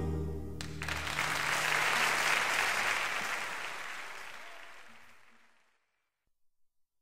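The last notes of a music track, then audience applause that swells and fades away over a few seconds into silence.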